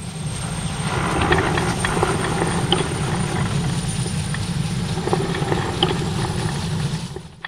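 Mechanical sound effect for an animated title: a steady, fluttering rumble with scattered clicks and a thin high whine, cut off suddenly at the end.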